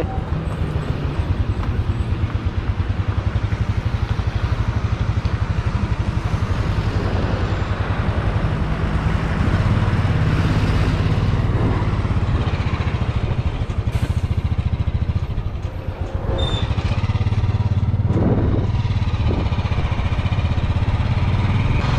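Motorcycle engine running with a steady low throb, easing off briefly about sixteen seconds in.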